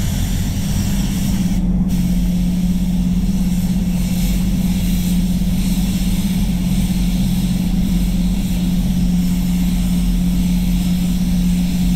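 Spray booth running with a steady low hum, under the hiss of compressed air from an Avalon A-50 spray gun laying red paint onto a bumper. The hiss drops out briefly about two seconds in.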